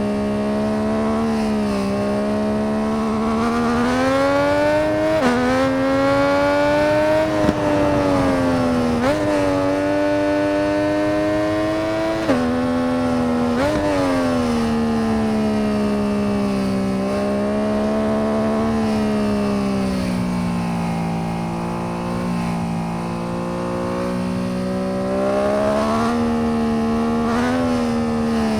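MV Agusta 800 RR's three-cylinder engine running under way, its note rising and falling with the throttle, with several sudden jumps in pitch at gear changes.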